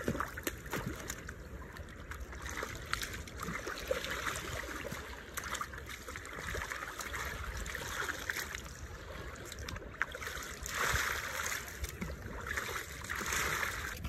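Shallow seawater splashing and trickling as feet wade at the water's edge and water pours out of a container dipped in the sea, coming in uneven surges.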